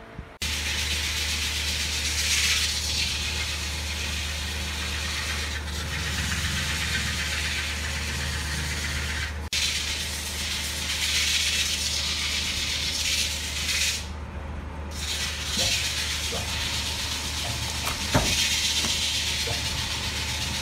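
Woodworking machinery running in a lathe shop: a steady low motor hum under loud hiss, with a few knocks and taps in the second half.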